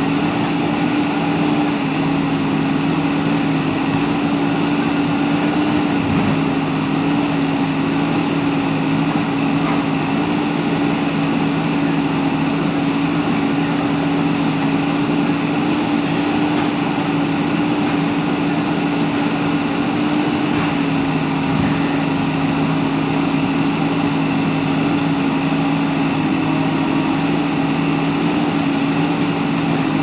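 JCB backhoe loader's diesel engine running steadily while the backhoe arm works.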